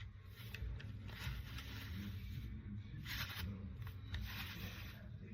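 Plastic scraping and rubbing with a few sharp clicks as a hair-dryer diffuser attachment is handled and twisted, in several rasping stretches over a steady low hum.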